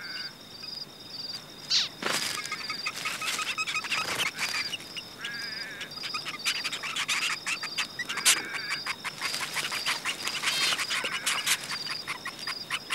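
Zebra finches at the nest: the female's short calls and her nestlings answering with high, rapid begging calls, busiest in the second half. An insect chirps steadily and evenly in the background.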